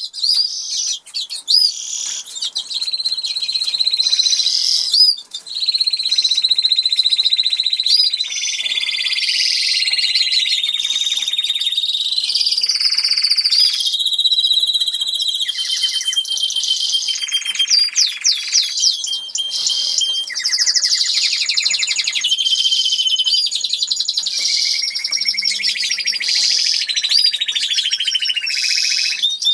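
Norwich canary singing a long, nearly continuous song of fast trills and held whistled notes, with a short break about five seconds in.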